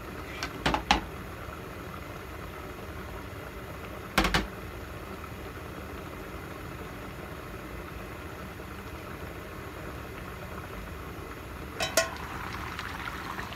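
Chicken stew boiling steadily in a covered pot on a gas burner, with its aluminium lid clinking sharply: twice about a second in, once around four seconds, and again as the lid is lifted off near the end.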